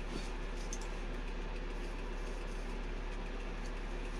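Steady low background hum with a couple of faint light clicks from the metal engine parts being handled.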